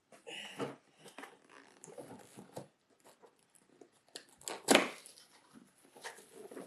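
A package being opened by hand: paper or plastic packaging tearing and crinkling in short irregular rustles, with one louder sharp rip a little past the middle.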